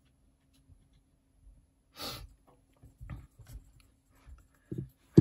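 Quiet handling of wood-mounted rubber stamps and paper on a craft table: a short rustle about two seconds in, a few light taps, and a soft thump just before the end.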